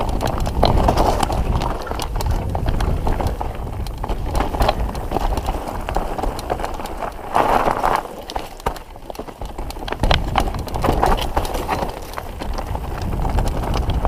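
Mountain bike rattling and clattering over rough rocky trail, with many sharp irregular knocks over a steady low rumble. It eases off briefly just past the middle, then picks up again.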